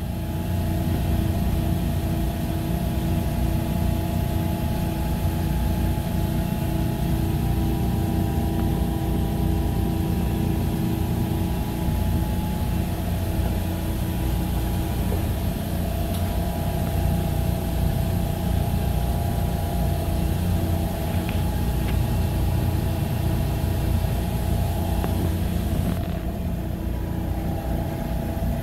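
Engine-room machinery running steadily: a loud low drone with a few steady hum tones. The higher hiss drops slightly about 26 seconds in.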